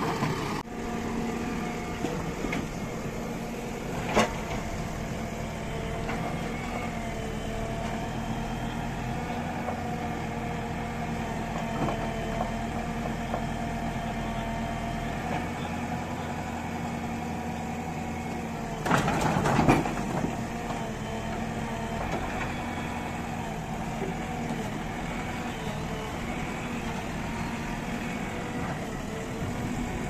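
Diesel engine of a JCB 3DX backhoe loader running steadily at low revs while it loads soil into a steel tractor trolley. About two-thirds of the way through, a loud clatter lasting about a second as a bucketful of earth and clods drops into the trolley.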